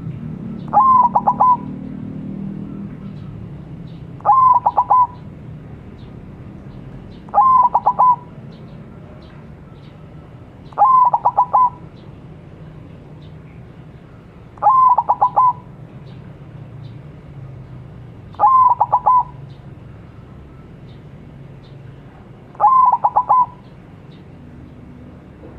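Zebra dove (perkutut) in song, or 'manggung': seven short cooing phrases spaced about 3.5 to 4 seconds apart, each a few quick notes running into a brief held coo.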